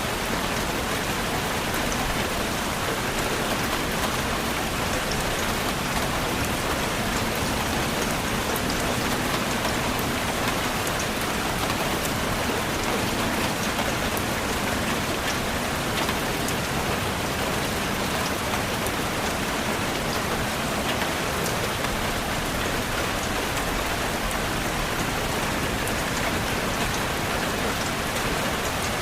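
Steady, continuous rain falling on a surface, with many small drop patters.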